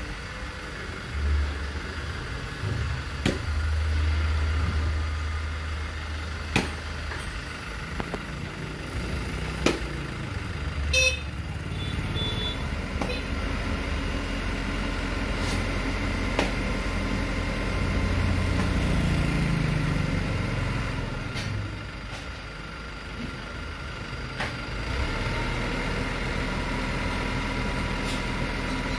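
A crane truck's engine running, revving up and settling back down twice. A few short sharp knocks sound over it, the loudest about eleven seconds in.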